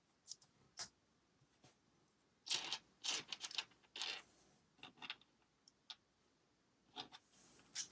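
Small plastic LEGO pieces clicking and rattling as they are handled during assembly: scattered sharp clicks, with a denser clatter a few seconds in and again near the end.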